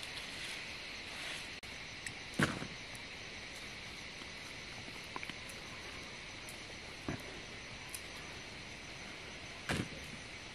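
Steady high chorus of insects, crickets or similar, with a few short thuds, the loudest about two and a half seconds in and near the end.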